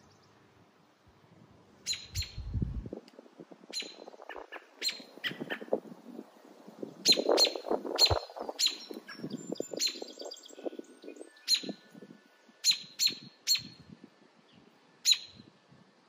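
American robin giving sharp, repeated alarm calls near its nest: short piercing notes at irregular intervals, sometimes in quick pairs, the sign of a parent bird defending its young. A low rustling rumble runs underneath, with a brief deep rumble near the start.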